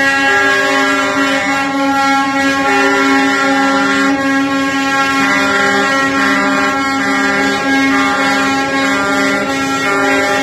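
Air horns of several semi trucks blowing together in long, unbroken blasts, their overlapping tones forming a steady, loud chord, with individual horns dropping in and out.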